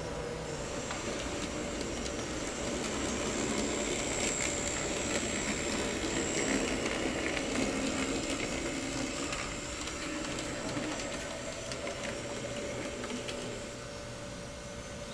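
N scale model trams running on the layout: small electric motors with a steady high whine and the rumble of wheels on the rails, with a few light clicks. It swells in the middle and fades near the end as the tram moves away.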